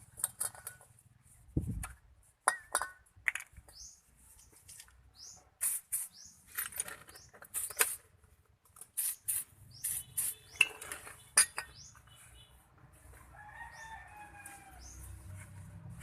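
Irregular metal clinks and taps of hand tools and brake parts being handled, with short rising bird chirps in the background and a wavering call near the end.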